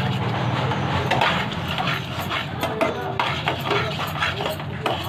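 Metal spoon stirring and scraping thick egg halwa around a steel pan, a run of quick scrapes and clicks against the pan. A low steady hum fades out about a second in.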